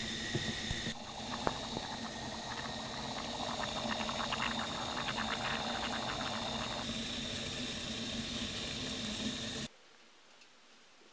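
Water boiling in a saucepan: a steady hiss with crackling bubbles through the middle stretch, over a low steady hum. It cuts off suddenly near the end.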